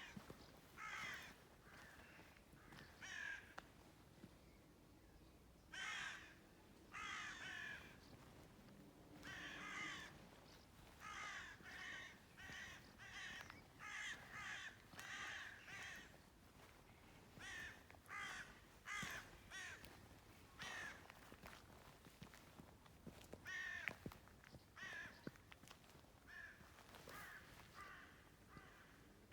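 Birds calling, a long run of short calls repeated in quick series with brief gaps.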